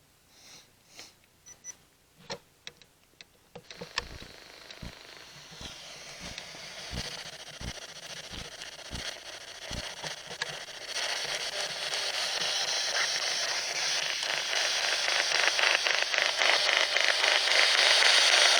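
A spirit box (radio-sweep ghost-hunting device) switched on and scanning through radio stations. A few clicks come first; then radio static hiss starts at about 4 seconds, with regular low pulses, and grows louder from about 11 seconds, chopped rapidly as the device sweeps.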